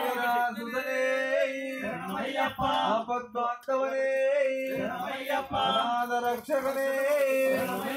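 Men singing a devotional chant, with long held notes broken by short pauses.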